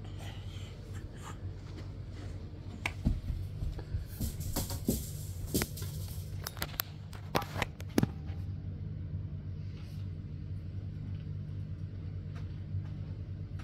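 A run of sharp clicks and knocks from about three to eight seconds in, loudest near the end of the run, over a steady low hum.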